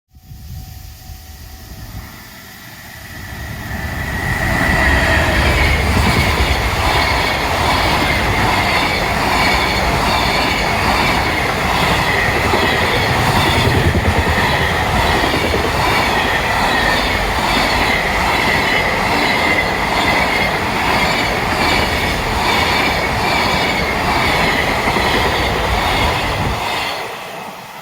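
JR Freight freight train passing close by: the wheels rumble and clatter on the rails, with a steady high-pitched squeal. It builds over the first few seconds, stays loud for about twenty seconds as the wagons go by, and falls away near the end.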